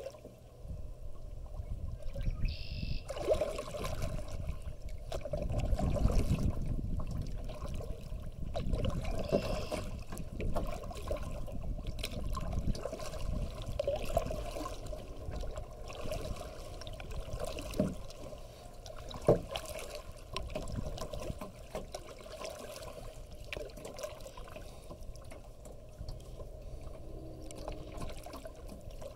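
Kayak paddle strokes: the blade dipping into the water and dripping as it lifts, in irregular swells every few seconds, with water lapping at the plastic hull over a low rumble. Two sharp knocks come about two-thirds of the way through.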